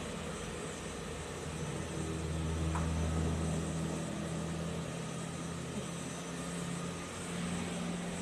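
Steady engine hum of street traffic, louder between about two and four seconds in, with one faint click near three seconds.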